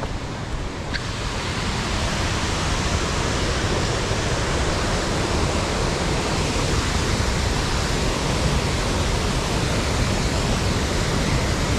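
Steady rush of falling water from a small waterfall, with an uneven low rumble of wind buffeting the microphone underneath.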